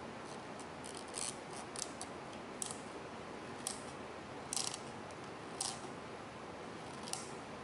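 Several faint, scattered clicks and scrapes of clear vinyl tubing being pushed and twisted onto the plastic outlet of a bilge pump, over a steady low hiss.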